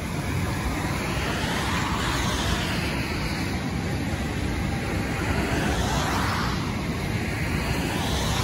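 Rough sea with heavy surf breaking on a rocky shore in stormy weather: a steady low rumble, with three hisses that swell and fade, about two seconds in, around six seconds, and at the end.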